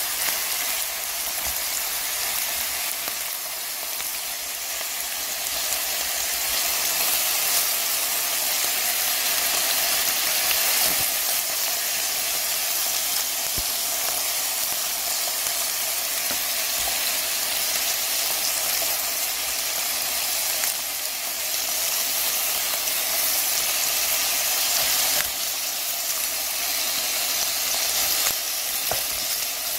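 Pork belly slices, whole garlic cloves and onion sizzling steadily in a hot grill pan, with a few light clicks.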